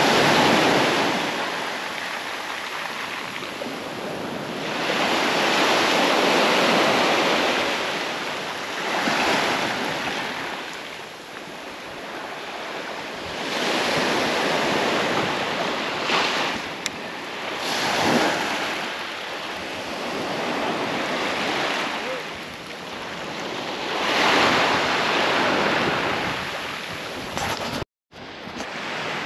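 Surf breaking on the shore, swelling and falling away every few seconds. The sound cuts out briefly near the end.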